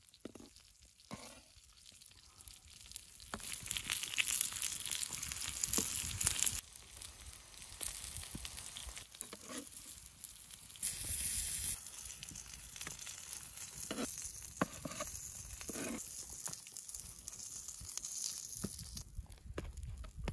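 Potato slices and corn sizzling on a hot flat stone slab, the sizzle growing louder about three seconds in. A knife blade scrapes and taps on the stone now and then as the slices are lifted.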